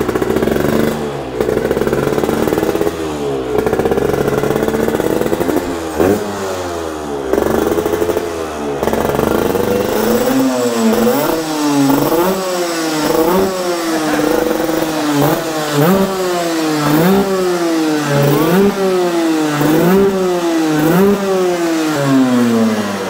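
Aprilia RS 125 race bike's single-cylinder two-stroke engine revving: its pitch climbs and drops back again and again, in uneven revs at first and then, from about halfway, in quick regular blips roughly once a second.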